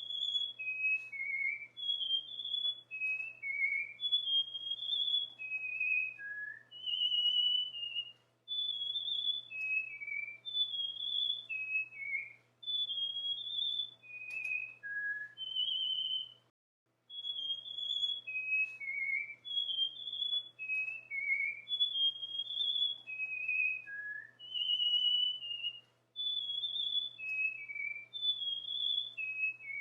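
Cockatiel whistling its song: a melody of short clear whistled notes that rise and fall in pitch. The whole phrase breaks off briefly about halfway through, then starts over the same way.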